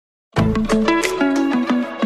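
Intro music starting about a third of a second in: a quick run of short plucked notes over a beat.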